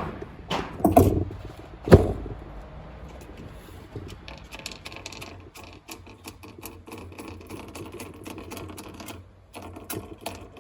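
A sharp bang about two seconds in, then a long run of quick small metallic clicks and rattles from a handgun and its magazine being handled, as rounds are pushed in.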